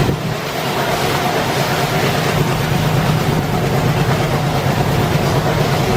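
ALCO WDG-3A diesel locomotive, a 16-cylinder ALCO 251 engine, running under power ahead of the coaches, over the steady rumble of the train rolling on the track.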